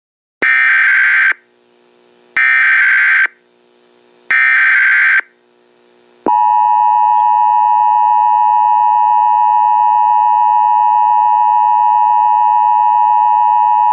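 Loud Emergency Alert System tones: three short bursts of SAME digital header data about two seconds apart, then about six seconds in the steady two-tone EAS attention signal starts and holds, the signal that announces an emergency broadcast message.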